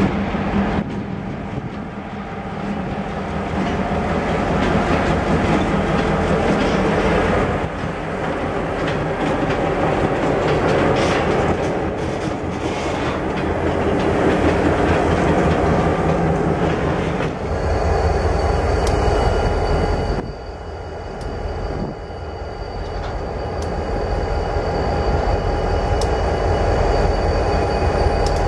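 Freight train passing close: a Canadian Pacific diesel locomotive's engine goes by, then tank cars and covered hoppers roll past with steady wheel clatter over the rail joints. About two-thirds through the sound drops suddenly and switches to another freight train rolling by, with a faint high steady squeal.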